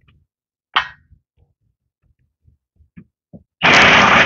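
An impact wrench runs in one loud rattling burst of about a second near the end, driving a snowplow bolt. About a second in there is a single sharp metallic clank.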